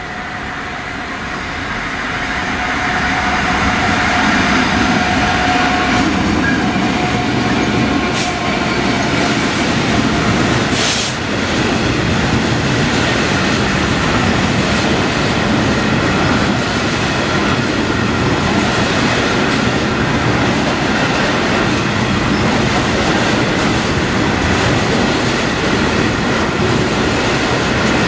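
Class 66 diesel locomotive with its two-stroke V12 engine drawing level and passing at the head of a coal train, getting louder over the first few seconds. A long rake of coal hopper wagons then rolls steadily past on the rails. There are two sharp knocks a few seconds apart, about a third of the way in.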